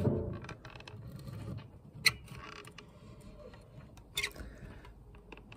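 Caulking gun being worked to squeeze out adhesive: scattered mechanical clicks from the trigger and plunger, two of them sharp, about two seconds in and again about four seconds in.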